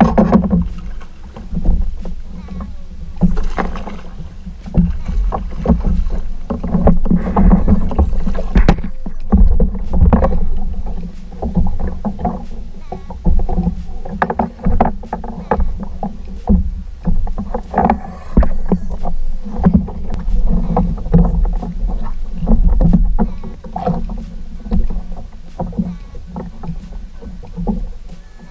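Mercury 3.5 hp outboard running steadily on a moving kayak, with water splashing irregularly against the hull.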